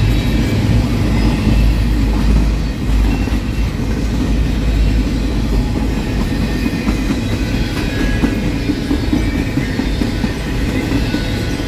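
Double-stack intermodal container train rolling past close by: a steady rumble of steel wheels on rail with occasional clicks as the wheels cross the rail joints.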